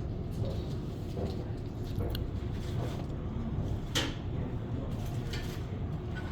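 Steady low store background hum with a few light knocks and clicks, the sharpest about four seconds in.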